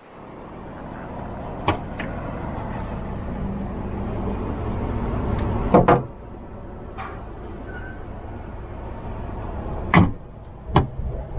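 Exterior storage locker on a Scania truck cab being worked open and shut. A steady noise builds for about six seconds, with sharp clunks about two, six, ten and eleven seconds in. The noise comes from the locker catching against the cab, not from its hinge.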